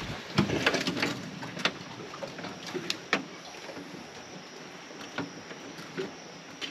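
Irregular knocks and clunks on a small boat over a steady hiss, with a cluster of them in the first second or so and single ones after that.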